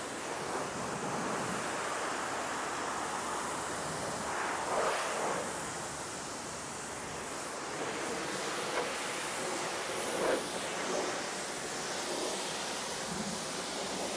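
High-pressure car-wash wand spraying water onto a car's body to rinse off the foam, a steady hiss of spray.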